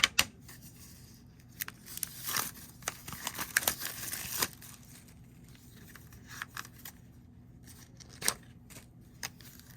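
Trading cards and their plastic sleeves being handled: rustling and crinkling with a few sharp clicks, busiest from about two to four and a half seconds in.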